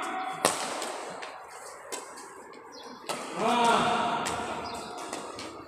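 Badminton rally: several sharp racket strikes on the shuttlecock in a large, echoing sports hall, with a man's voice calling out for about a second just after the middle.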